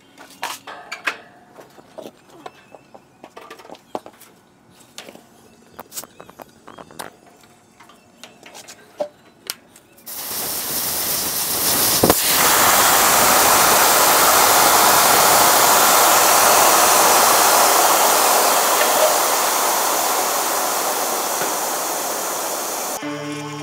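Light clicks and clinks of fittings and tools. Then, about ten seconds in, a loud, even hiss starts suddenly as pressurised gas rushes through a refrigerant gauge manifold and its hoses on a heat pump, slowly easing off toward the end.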